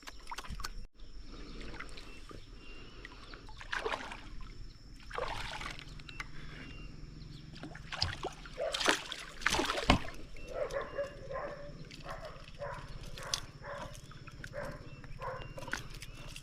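Water sloshing and splashing against a small boat, with scattered light knocks and handling noises.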